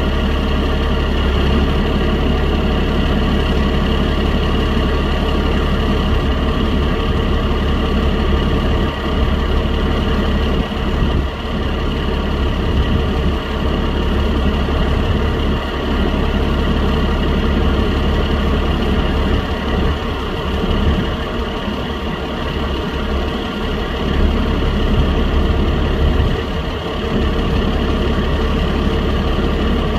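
Forage harvester chopping corn silage: a heavy diesel engine and its machinery running at a constant working speed, giving a steady drone with a continuous whine over a low rumble.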